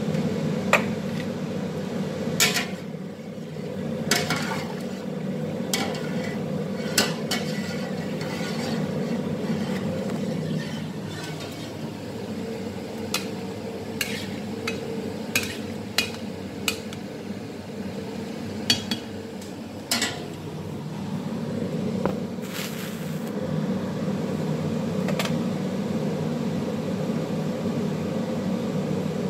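Utensils knocking and clinking against large steel stockpots as the food is stirred, in irregular sharp knocks over a steady low hum.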